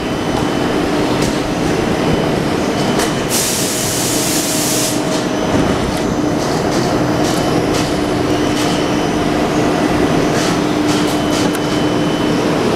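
Thermoforming (vacuum forming) machine running: a steady mechanical rumble with a held hum, scattered clicks and knocks, and a burst of air hiss lasting under two seconds about three seconds in.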